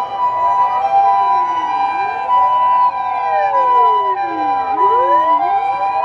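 Japanese ambulance siren sounding its two-tone 'pee-po', switching back and forth between a higher and a lower steady pitch, overlapped by several wailing sirens of other emergency vehicles that sweep down and back up in pitch.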